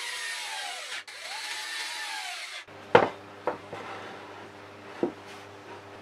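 Handheld power drill boring into a piece of wood, running in two spells with a brief stop about a second in, its motor whine sagging in pitch under load and recovering. Then three sharp knocks, the loudest about three seconds in.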